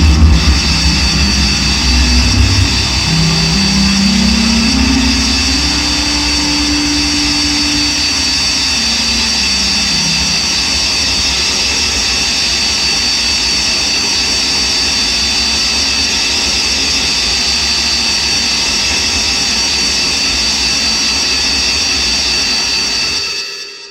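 Electronic drone-noise music played live: a dense wall of noise with steady high whistling tones over it. Heavy bass and a low tone that rises and then falls in pitch fill the first ten seconds, then the texture holds steady until it cuts off abruptly near the end.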